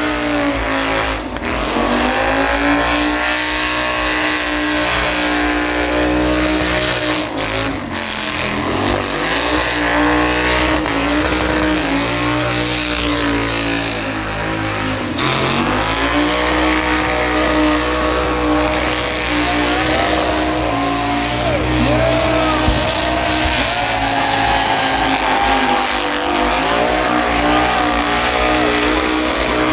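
A burnout car's engine held at high revs while the rear tyres spin and squeal in a burnout. The revs dip and climb back three times: shortly after the start, around eight seconds in and around fifteen seconds in.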